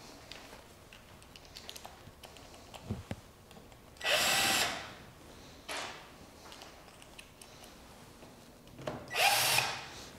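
Cordless drill-driver running stainless steel bolts to fasten the sections of a pond aerator intake screen together. There are two short runs, about four and nine seconds in, each lasting under a second, with a brief blip between them and light clicks from handling the parts before them.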